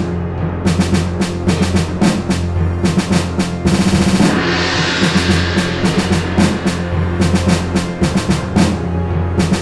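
Dramatic electronic film score: a driving beat of drum and timpani strikes over a sustained low bass. A quick drum roll about four seconds in leads into a brief hissing swell before the beat picks up again.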